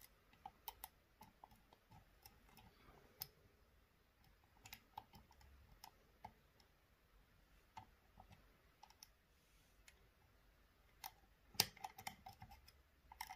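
Faint, scattered clicks of a flat flag lock pick working inside the security keyway of an Assa D12 v2 lock cylinder, feeling for the security pin, with a quicker run of sharper clicks near the end.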